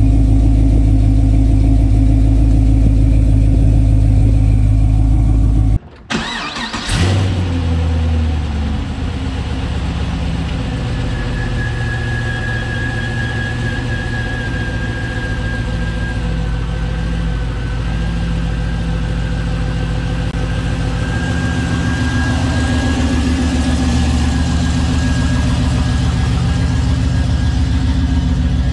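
2006 Pontiac GTO's LS2 V8 idling through aftermarket long-tube headers and an X-pipe, heard at the exhaust tips. About six seconds in the sound cuts off. The engine then starts with a brief flare and settles back to a steady idle, with a thin high whistle over it for a stretch in the middle.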